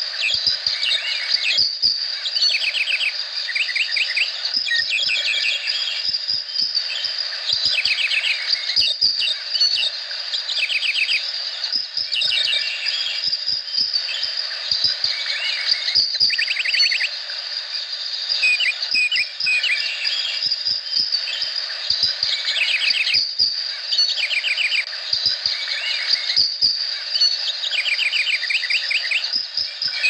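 Tropical rainforest chorus: a steady high insect drone with bursts of fast trilled calls and scattered chirps every few seconds.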